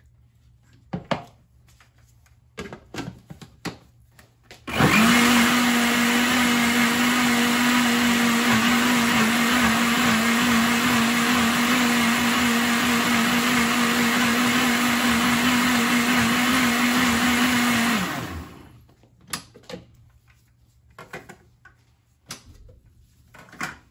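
Countertop jug blender running for about thirteen seconds, mixing a cornmeal pancake batter thinned with extra milk: it starts suddenly about five seconds in with a steady motor hum and spins down near the end. A few light clicks and knocks come before and after it as the jug and lid are handled.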